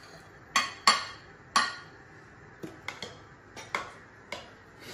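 Metal serving tongs clinking against a stainless steel pan and a china plate while salad is served: about eight sharp clinks, irregularly spaced, the loudest in the first second and a half.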